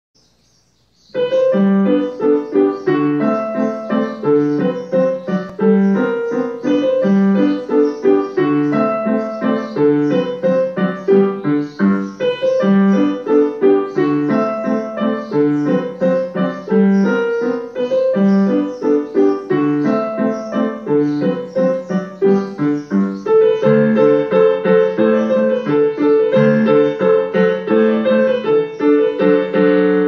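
Background piano music: a steady run of repeating note patterns that starts about a second in.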